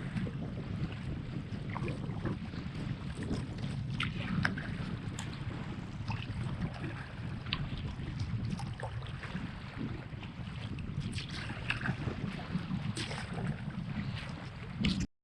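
Wind buffeting the microphone in a steady low rumble, with scattered splashes of kayak paddle strokes and choppy waves slapping the hull.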